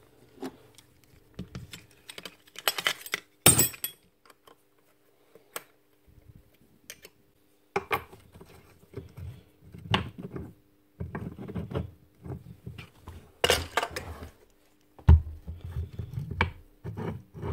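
Metal parts of a Rotabroach Commando 40 magnetic drill clinking, clicking and knocking as they are handled and fitted together on a bench, in irregular clatters with a few sharper knocks.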